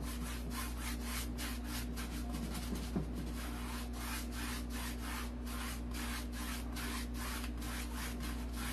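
A 1-inch flat paintbrush loaded with wet acrylic paint stroked back and forth across a stretched canvas, about three brushing strokes a second, over a steady low hum.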